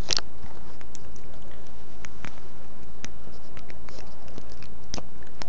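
Plastic HID kit wiring connectors being handled and pushed together, giving a scatter of small irregular clicks and rustles, with a steady low hum underneath.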